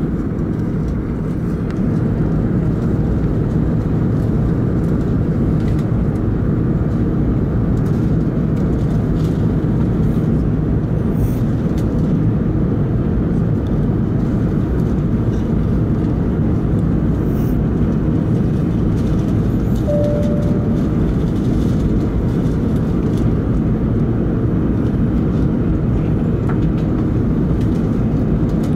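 Steady cabin noise of an Airbus A380-800 in its climb after takeoff: its four Rolls-Royce Trent 900 engines and rushing air, heard from inside the passenger cabin. A brief faint tone sounds about two-thirds of the way through.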